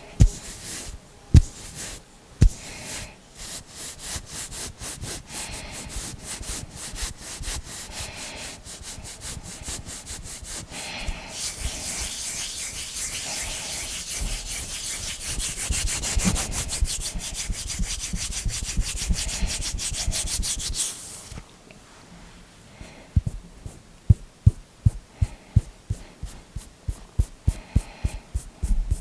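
Hands rubbing together close to the microphone in quick scratchy strokes that speed up into a continuous hiss for about ten seconds, then stop. Sharp separate finger clicks follow, a couple a second.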